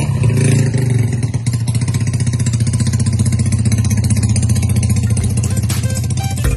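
Honda PCX 160 scooter's single-cylinder engine idling with a steady, fast, even beat.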